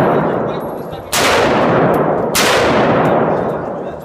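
M4 CQBR short-barrelled 5.56 mm carbine firing two single shots a little over a second apart, each followed by a long echo in the enclosed indoor range.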